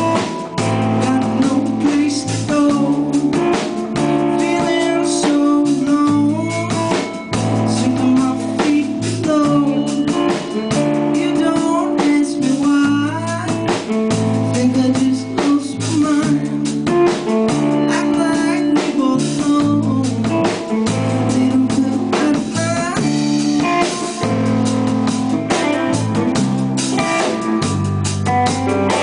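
A live rock band playing loudly through amplifiers: electric guitar, electric bass stepping through low notes, and a drum kit with frequent snare and cymbal hits.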